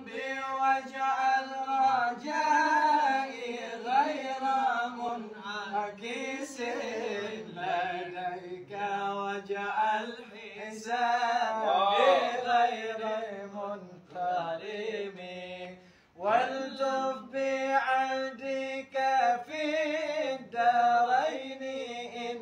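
Men singing sholawat, Arabic devotional verses, unaccompanied: a slow melodic chant with long held, wavering notes, breaking off briefly about two-thirds of the way through.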